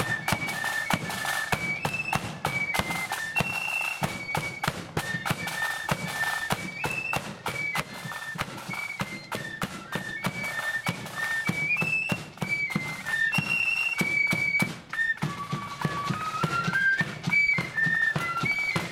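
Marching flute band playing a tune: flutes carry the melody in unison over steady snare drums and a bass drum. Past the middle the flutes climb a rising run of notes.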